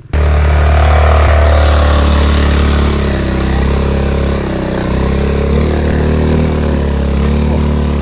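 Honda Forza 350 scooter's single-cylinder engine pulling hard up a steep dirt slope with two riders aboard, heard from on the bike. The engine note cuts in abruptly and wavers slightly as the throttle changes.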